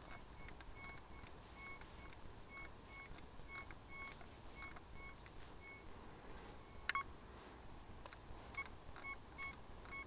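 Desert Gold metal detector giving short repeated signal beeps as its coil is swept over a buried 2-euro coin, about two beeps a second with pauses, muffled by duct tape over the speaker. A sharp click about seven seconds in.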